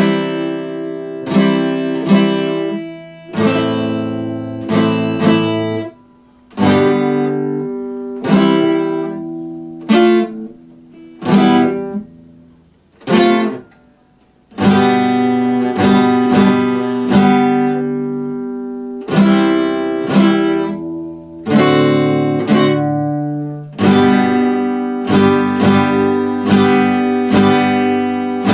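Epiphone acoustic guitar strummed, chord after chord ringing out and fading. There are short breaks between chords in the first half, then steadier strumming.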